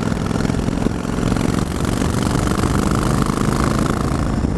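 Yamaha Virago XV1100's air-cooled V-twin engine running steadily and evenly, with no misfire, cough or splutter, after the regulator rectifier was replaced.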